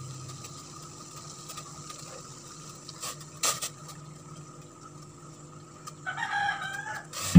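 A couple of short knocks and plops as fish pieces go into a stainless-steel pot of water, about three seconds in. Near the end a rooster crows once, a warbling call lasting about a second.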